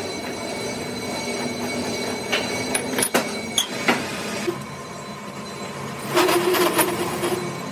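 Machinery running steadily, with several sharp clicks in the middle and a louder scraping squeal near the end.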